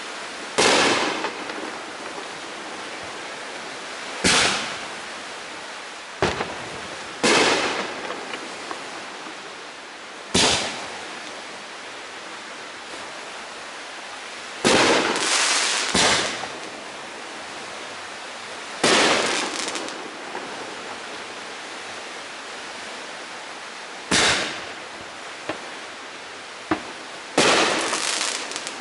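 Aerial fireworks bursting overhead: about ten loud bangs at irregular gaps of a few seconds, some coming two or three in quick succession, each trailing off in an echo. A steady hiss fills the gaps between them.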